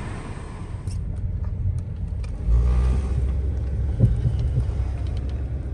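2013 Dodge Avenger driving, heard from inside the cabin: a low engine and road rumble that grows louder about two and a half seconds in as the car pulls along. A single sharp knock comes about four seconds in.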